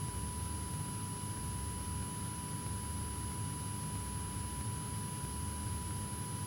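Cessna 172K's four-cylinder Lycoming engine and propeller droning steadily on approach, heard as a low, even rumble through the cockpit intercom, with a thin steady high whine over it.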